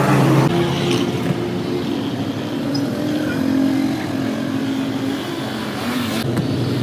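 An engine running with a steady hum whose pitch shifts up and down a few times.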